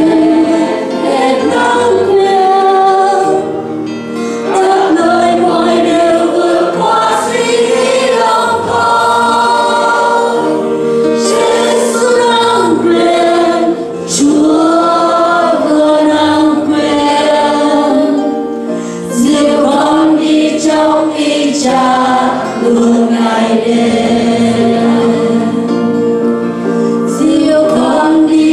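Three women singing a Vietnamese worship song together into microphones, in phrases with short breaks between them, accompanied by keyboard and acoustic guitar.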